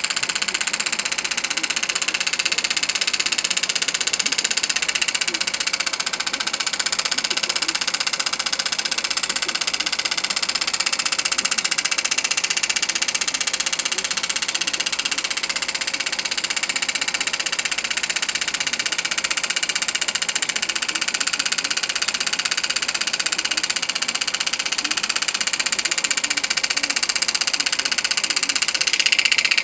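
Elmer's #8 Scotty model steam engine running steadily on compressed air at about 10 PSI: a fast, even, hissing rhythm that holds the same speed throughout.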